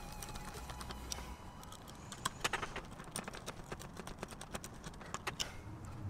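Scattered light clicks and taps of small hard parts being handled, as a mounting bracket is fitted onto an automotive switch panel.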